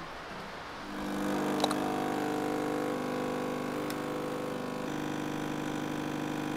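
Espresso machine's pump humming steadily while it pulls a shot, starting about a second in, with a couple of light clicks.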